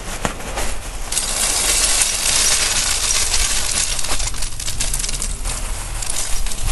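Lumps of charcoal poured from a woven sack into an earth pit, clattering and clinking as they tumble in. The pour starts about a second in, is heaviest over the next two seconds, then thins to a scattered rattle.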